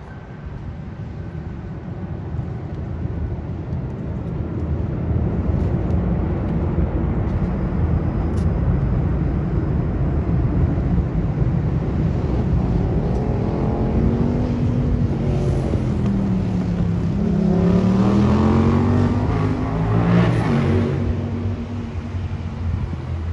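Jet airliner's engines in reverse thrust during the landing rollout: a steady low roar that builds over the first few seconds. Toward the end it swells louder, with tones sliding down and back up.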